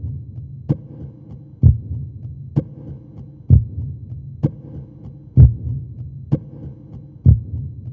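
Deep, even thumping pulse in a soundtrack bed: a low thump a little under once a second, every other one louder, each with a sharp click on top, over a steady low hum.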